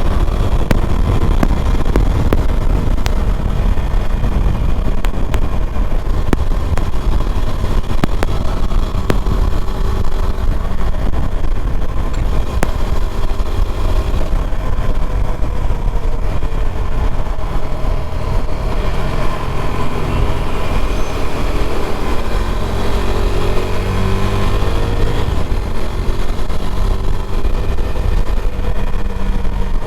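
KTM Duke 390's single-cylinder engine running on the move, over a heavy low rumble. Its pitch rises and falls gently partway through as the throttle changes.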